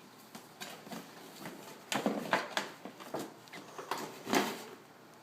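Packaging being handled and torn open: irregular crinkles, rips and scrapes of cardboard and plastic, busiest from about two seconds in.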